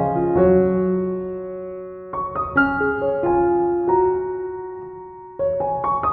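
Background piano music: soft notes and chords that ring and fade away, with new phrases struck about two seconds in and again near the end.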